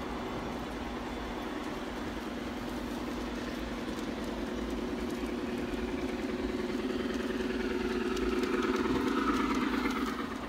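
G-scale model steam locomotive running along garden track, its electric motor and gearbox giving a steady humming drone with a fast ripple. The drone grows louder as the train comes close, with light clicking from the wheels on the rails, and falls away near the end.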